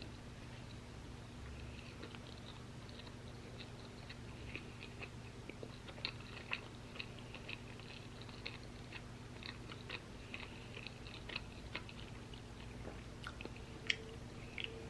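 Close-miked chewing of crunchy waffle fries: a steady run of small crisp crunches with mouth sounds, and one sharper crunch near the end.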